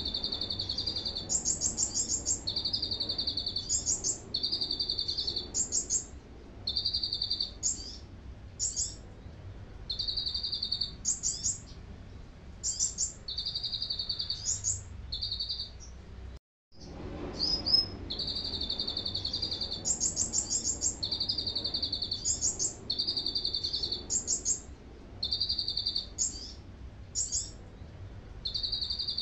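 Konin sunbird singing a canary-style song of short trills, alternating between a lower and a higher pitch, phrase after phrase about a second apart. About halfway through the song cuts out for a moment and the same run of phrases starts over.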